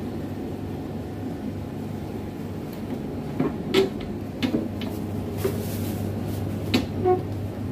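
Cabinet doors under a bakery counter being opened, and a flat cardboard cake box pulled out from inside: a series of short knocks and clatters starting about three and a half seconds in, over a steady low hum.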